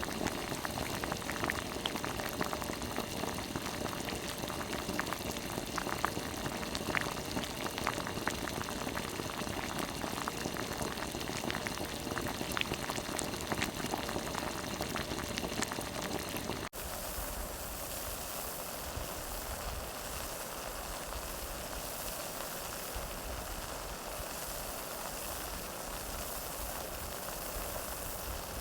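Water boiling in a pot, bubbling with many small pops. About two thirds of the way in it cuts abruptly to a steadier hiss with a low rumble and fewer pops.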